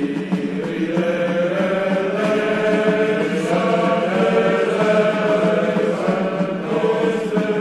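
Background music: a slow, sustained melody over a steady low drone, chant-like in character.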